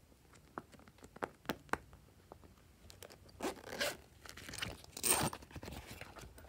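A few short clicks as silicone pop-it bubbles are pressed, then the zipper of a silicone pop-it bag is pulled open in two zipping strokes in the second half, the later one the louder.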